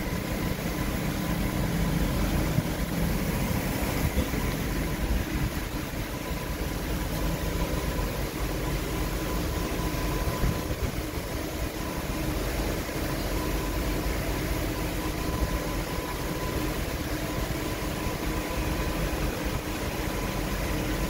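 Bus engine idling steadily: a low rumble with a faint steady whine over it.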